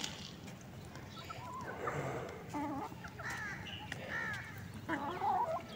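Chickens clucking and calling: a run of short calls starting about two seconds in, loudest near the end.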